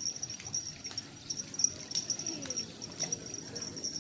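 Insects chirping in a steady, rapid high-pitched pulsing chorus, with a few faint clicks.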